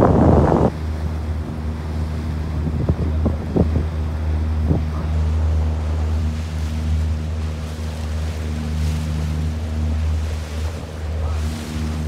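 Boat engine running with a steady low drone, heard from on board, with water and wind noise over it. A loud rush of wind or water noise cuts off within the first second, and a few light knocks come a few seconds in.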